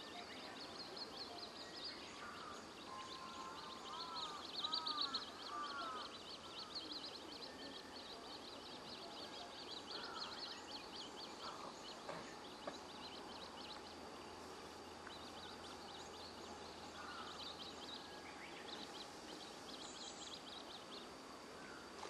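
Birds calling: a steady run of rapid, high chirps, joined by a few arched, lower calls about three to five seconds in.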